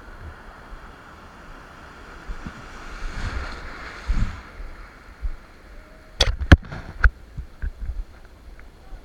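Rushing sea water and wind noise on the microphone, swelling about three seconds in, then a quick cluster of four sharp knocks or slaps about six to seven seconds in.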